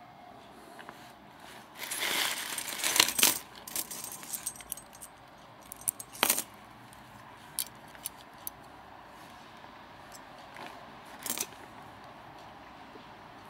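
Metal hiking clips (carabiners) clinking and clicking as they are handled. A dense run of clinks and scuffling comes about two seconds in, then single sharp clicks and light ticks follow at intervals.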